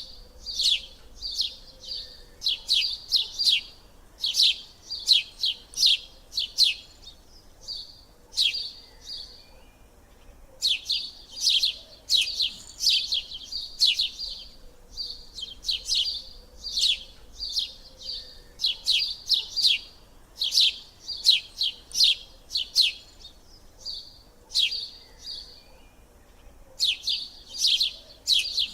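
Bird chirping: quick high chirps grouped into phrases of a few seconds, repeating over and over with short pauses between them.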